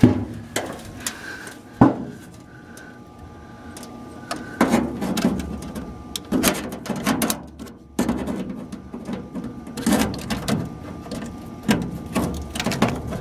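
A knife blade scraping and poking at rust spots on the sheet steel of a Bryant furnace's secondary heat exchanger, a few sharp knocks near the start and then several short scraping strokes. The knife sticks right into the metal: the secondary heat exchanger is rusted through and bad.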